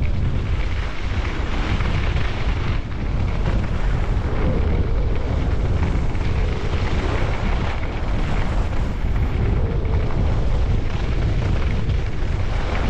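Wind buffeting the microphone of a camera carried by a skier on a fast downhill run: a loud, continuous rushing with a deep rumble that wavers in strength but never stops.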